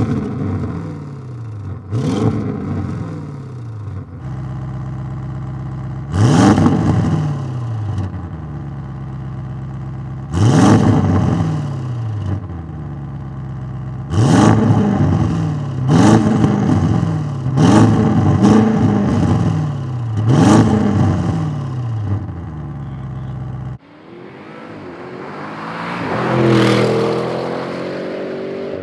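Audi RS6 Avant's 4.0-litre twin-turbo V8 idling and being blipped at standstill, about eight sharp revs that rise and drop back to idle, through the stock exhaust at first and then through Fabspeed sport-cat downpipes with 200-cell high-flow cats. Near the end the car drives past, its exhaust note swelling and fading.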